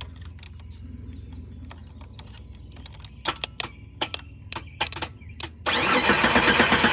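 Sharp clicks as jumper-wire ends are touched into the empty starter-relay socket, then about five and a half seconds in the starter engages and cranks the Jeep Grand Cherokee WJ's engine over with a rapid, even pulsing. The engine is turning over without firing.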